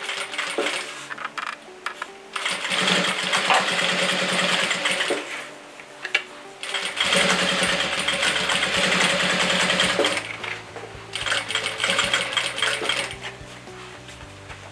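Jack industrial sewing machine stitching bias binding onto a fabric pouch. It runs in bursts with pauses between them: two longer runs of about three seconds each, then shorter spurts.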